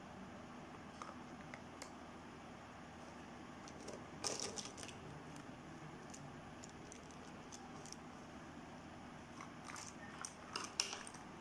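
Plastic markers, crayons and pens clicking and rattling against each other as they are dropped into a newspaper pen holder: a cluster of clicks about four seconds in and another near the end, over a faint steady hiss.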